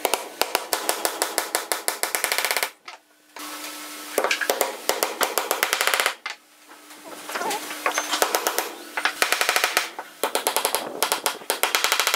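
Steel hammer rapidly striking wooden dowels, driving them into drilled holes in a pine board: quick, even runs of sharp knocks, around ten a second, broken by three short pauses.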